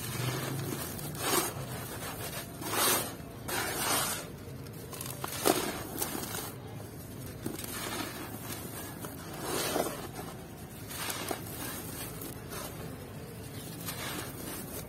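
Dry red dirt clumps crushed in the hands, crunching and crumbling, with loose grit pouring onto a metal plate. It comes in about a dozen separate grainy swells, several of them brief and sharp.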